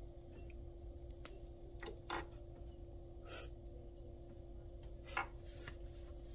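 Quiet room tone: a steady low hum, with a few faint scattered clicks and rustles.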